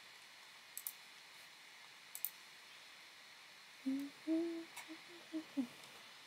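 A woman softly hums a few short notes of a tune, the song she has stuck in her head, starting about four seconds in. Before it come a couple of faint clicks.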